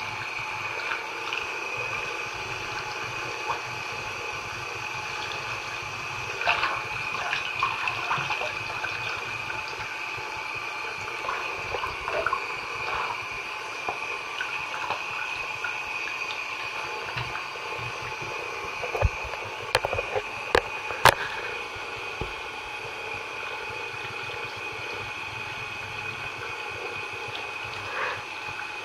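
Bath tap running steadily into a filling bathtub. Irregular splashes and sloshing come as booted feet move in the water, and a few sharp clicks about twenty seconds in are the loudest sounds.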